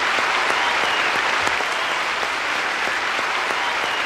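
Large audience applauding steadily, the sound of many hands clapping at once.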